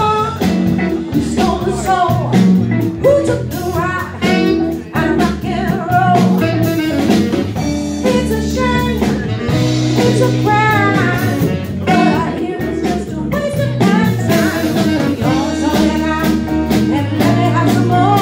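Live blues band playing an upbeat, funky song: a woman singing over electric guitar, bass, saxophone and a drum kit with a steady beat.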